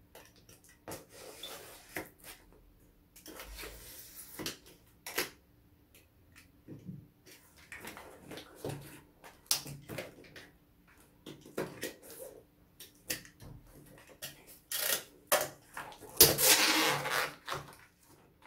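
Box cutter slicing the plastic wrap and tape on a cardboard shipping box, then the wrapping crinkling as it is pulled off and the lid lifted, with scattered taps and knocks. The loudest stretch of rustling comes about sixteen seconds in.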